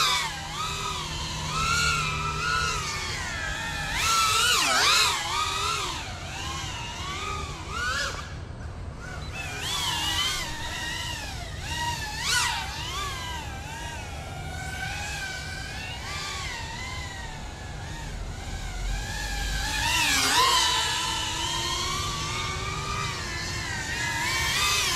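GEPRC Cinelog 35 cinewhoop FPV quadcopter flying, its motors and propellers whining and sliding up and down in pitch with the throttle. It swells louder about four seconds in and again near twenty seconds.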